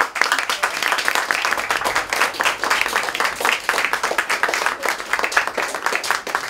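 A small group of people applauding, many hands clapping quickly and densely.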